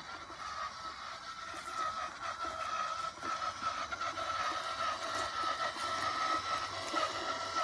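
Electric motors of a homemade robotic lawn mower running with a steady whine, growing louder as it comes closer.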